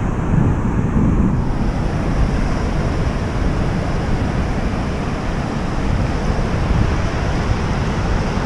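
Ocean surf washing and foaming around the legs in shallow water, a steady rushing hiss, with wind buffeting the microphone as a low rumble. The hiss brightens about a second and a half in.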